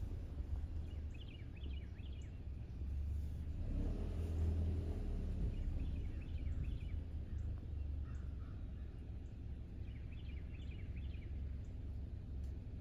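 A bird chirping in short quick phrases, three times about four seconds apart, over a steady low rumble.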